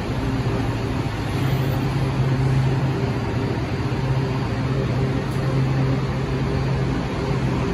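A Washington Metro railcar standing at an underground platform, its air-conditioning and onboard equipment giving a steady hum with a low tone over a rushing noise.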